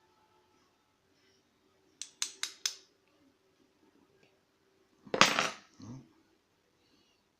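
Small metal lock parts and tools being handled on a work surface while a euro cylinder is taken apart: four quick sharp clicks, then a louder clatter a few seconds later with a dull knock after it.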